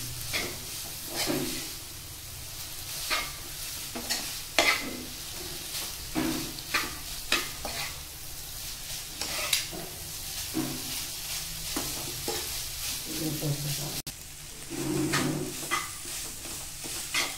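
Instant noodles and sliced vegetables sizzling in a non-stick kadhai on a raised flame, while a steel spoon stirs and tosses them, scraping and clicking irregularly against the pan about once a second.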